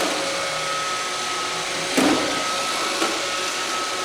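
Roomba robot vacuum running with a steady whir and a high whine, with a sharp knock about halfway through and a lighter one near the end.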